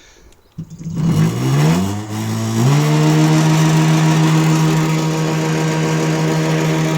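Electric hub motor of a small e-moped humming loudly under power without driving properly, with wild vibration. Its pitch rises over about two seconds, then holds steady. The owner suspects a failed Hall sensor.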